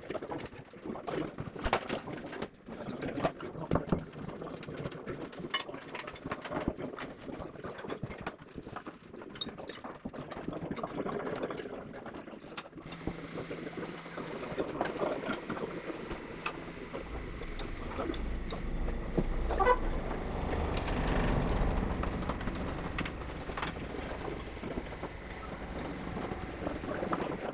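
Workshop noise around a steam locomotive's raised frames: scattered metal clanks and knocks. About halfway in a steady hiss starts suddenly, and a low rumble joins it shortly after.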